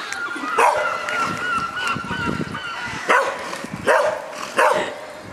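A dog barking, four sharp barks spaced unevenly through the clip. A high, wavering dog whine runs under the first bark and for a couple of seconds after it.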